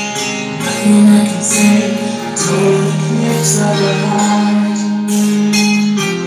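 Recorded music: a power ballad with held chords and a few drum hits.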